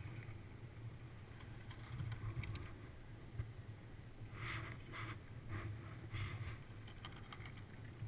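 Sliding up groomed snow on a drag lift: a steady low rumble, with a few short scraping hisses about halfway through.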